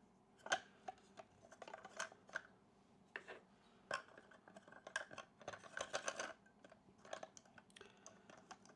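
Batteries being fitted into a Super 8 film camera's battery compartment: faint, irregular clicks, taps and scrapes of batteries against the plastic, with a quick flurry of clicks a little past the middle.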